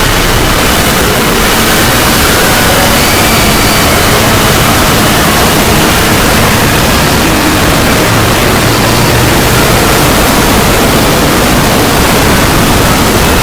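Logo sound effect boosted into a heavily distorted, clipped, steady noisy roar across all pitches, with faint wavering tones barely showing through. It is the deliberately 'loud' earrape-style version of the logo sound.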